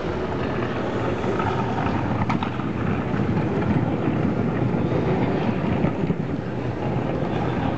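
Steady low rumbling background noise, with a faint click a little over two seconds in.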